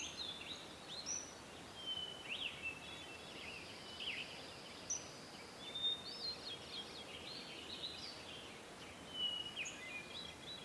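Birds chirping and singing faintly, in short high notes that sweep up and down, scattered throughout over a faint steady hiss.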